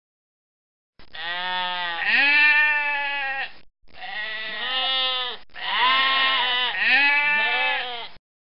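Domestic goat bleating: a run of long, wavering bleats in three stretches, starting about a second in, with brief breaks between them.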